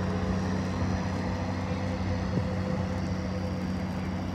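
A large vehicle engine running steadily: a low, even hum with no change in pitch.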